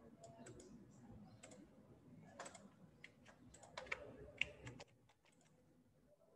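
Faint, irregular clicking at a computer, about fifteen sharp clicks over the first five seconds, then it stops.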